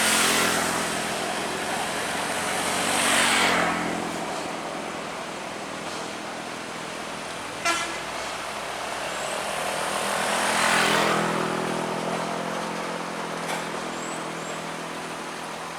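Vehicles on the road passing one after another, each a rising and falling swell of engine and tyre noise, the loudest about three seconds and eleven seconds in. A short horn toot about halfway through.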